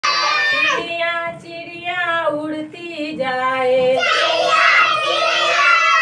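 Young children singing a Hindi counting rhyme about little birds, with a woman leading. A single clear voice carries the first line, then many children sing together from about four seconds in.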